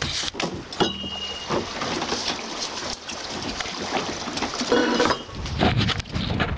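Wind buffeting the microphone on a small open boat at sea, with scattered clicks and knocks over it. A low rumble builds over the last second or so.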